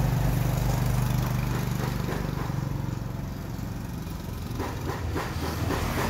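An engine running steadily with a low, fast-pulsing hum, a little quieter in the middle.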